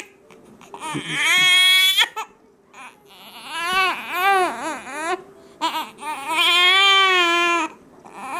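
Young baby crying in wails: one cry about a second in, a run of short wails in the middle, and a long held wail near the end.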